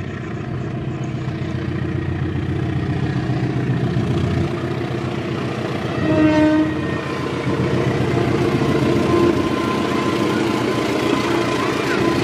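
KAI CC203 diesel-electric locomotive approaching and passing close at the head of a passenger train, its engine and wheels growing steadily louder. About six seconds in it sounds its horn once, briefly.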